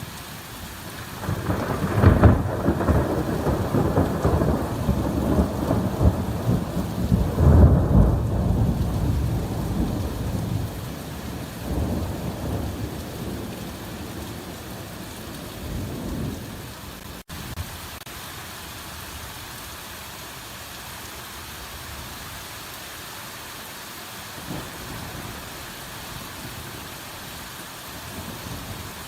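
Hard rain falling steadily, with a long roll of thunder. The thunder starts about a second and a half in, swells twice and rumbles away over the next fifteen seconds, leaving the rain alone.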